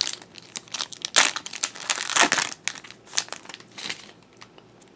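Plastic booster-pack wrapper of Yu-Gi-Oh cards being crinkled and torn open by hand, a dense, irregular crackling that dies away about four seconds in.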